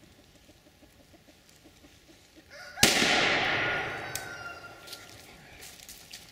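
A single .223 Remington rifle shot about three seconds in, firing a 45-grain Glaser Blue Tip safety slug; a sharp crack with a long ringing tail that fades over about a second and a half. A chicken calls around the shot.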